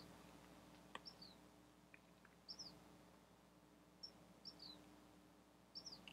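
Near silence: room tone with a steady low hum, and faint short high chirps that fall in pitch, often in pairs, about every second or so.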